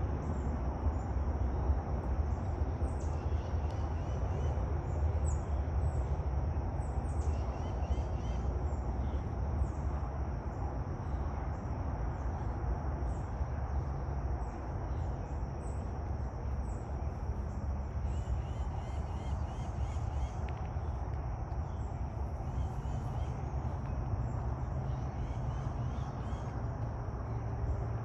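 Outdoor ambience: birds chirping and calling in short notes over a steady high-pitched buzz and a steady low rumble.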